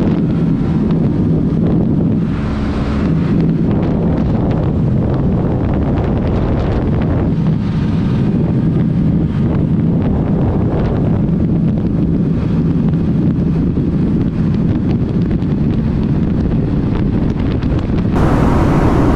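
Heavy wind buffeting the microphone of a 125 cc scooter ridden at speed, over the scooter's engine running with a steady, unchanging drone.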